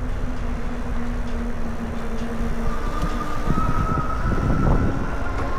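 Lectric XP 2.0 electric bike in motion: wind buffeting the microphone and rolling rumble, with a steady motor whine that moves to a higher pitch about three seconds in.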